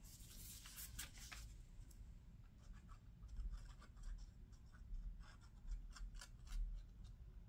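Faint, intermittent rustles and scrapes of paper scraps being handled, coming in short clusters.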